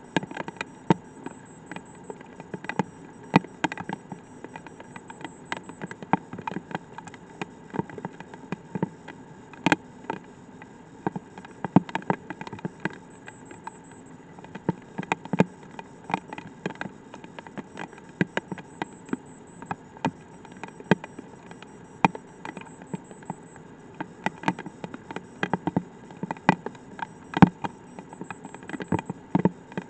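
Light rain: scattered raindrops striking close by as irregular sharp ticks, several a second, over a steady hum.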